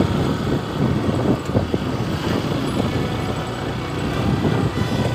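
Motorcycle riding along a rough dirt track: the engine running under a dense, uneven low rumble.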